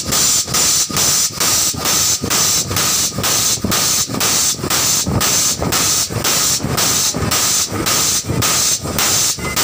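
50-ton air-hydraulic bottle jack's air pump hissing in quick, even pulses, about three a second, as it raises a truck's rear axle.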